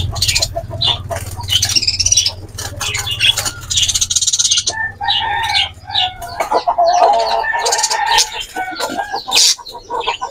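Caged parakeets flapping their wings in a flurry and calling in alarm as they are caught by hand inside a wire-mesh aviary.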